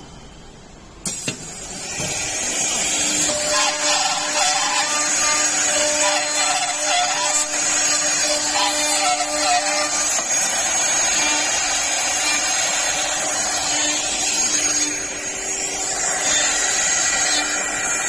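Door-lock side drilling machine at work: after a click about a second in, its spindles start up and drill into the edge of a door, a loud steady cutting noise with a high whine. The noise dips briefly near the end.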